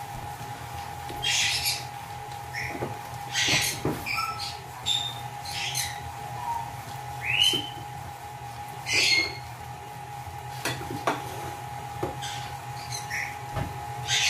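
Pet birds squawking and chirping in short, repeated calls over a steady electric hum, most likely a hand mixer running.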